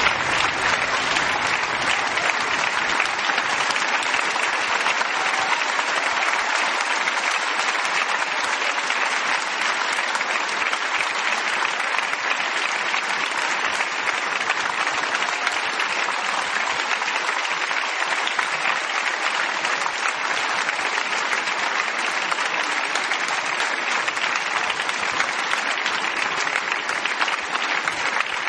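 Audience applauding: a long, steady round of clapping that breaks out suddenly and holds at an even level.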